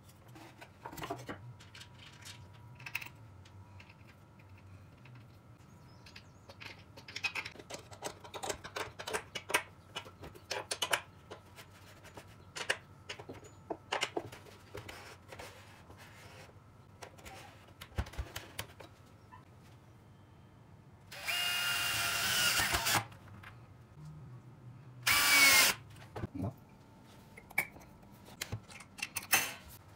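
Scattered clicks and knocks of wooden parts and hardware being handled. Late on, a power drill runs twice in short bursts of about two seconds each; the second rises in pitch as it spins up.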